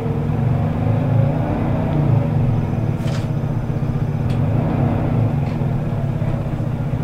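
Scania L94UB city bus under way, heard from inside its Ikarus E94 passenger cabin: a steady low engine drone, with a couple of faint clicks or rattles about three and four seconds in.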